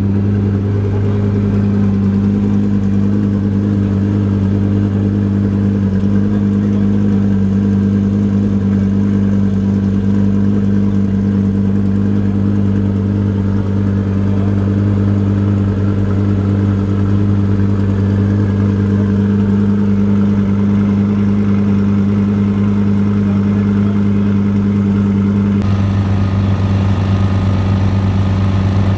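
Twin-turbo Audi R8 V10 engine idling steadily. Its tone shifts slightly near the end.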